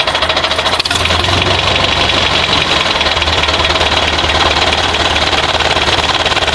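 An engine running steadily at idle with a fast, even knocking rattle, heard as the sound of the toy JCB or tractor. There is a brief click about a second in.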